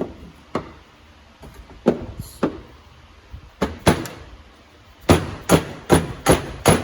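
Mallet striking a BMW 335i turbocharger to knock a seized part loose: about eleven sharp blows, spaced out at first, then five quicker and louder ones near the end.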